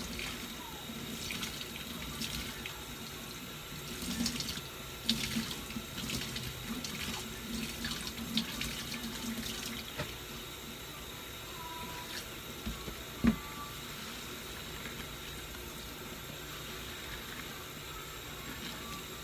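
Kitchen faucet running steadily into a stainless steel sink while a sponge is squeezed and rinsed under the stream, with irregular splashes and squelches in the first half. A single sharp knock about 13 seconds in.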